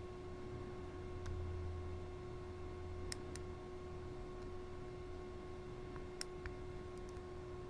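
Faint, scattered clicks of a lock pick and tension wrench working the pin stack of a Master Lock No. 3 laminated padlock, about half a dozen sharp ticks at irregular intervals, over a steady hum.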